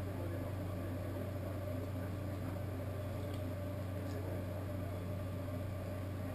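Steady low hum with an even hiss over it: room tone, with no clear event standing out.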